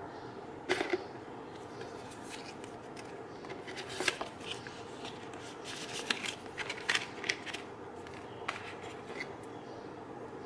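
Packaging being handled while unboxing an iPad mini: scattered rustles and small sharp clicks over a steady background hiss.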